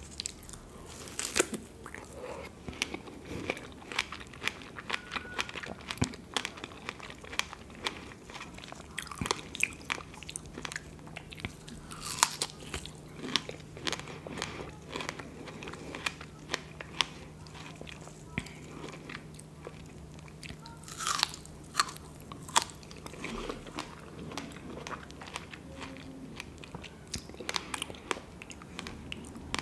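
Close-miked biting and chewing of fresh strawberries, with many sharp mouth clicks and smacks.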